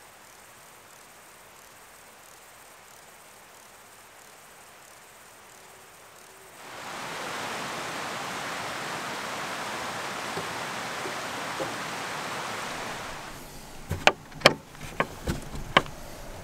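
Faint mountain evening quiet, then, about seven seconds in, a mountain stream rushing steadily. Near the end come several sharp, irregular knocks and rattles as a hand tries an old wooden door that is locked.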